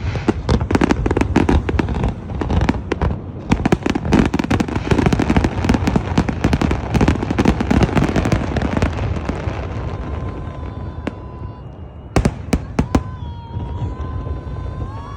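Fireworks display: a dense run of crackling bursts and bangs that thins out after about nine seconds, followed by a few last sharp bangs about twelve seconds in.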